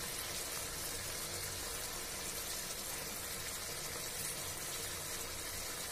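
Potato and soya-chunk curry simmering in the pan, making a steady bubbling noise as it comes to the boil.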